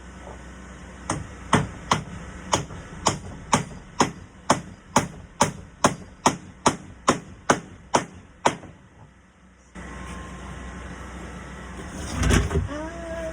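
Hammer driving hand-forged nails through an iron door hinge into the wood: a steady run of about seventeen sharp strikes, roughly two a second, that stops about two-thirds through. A single heavier knock follows near the end.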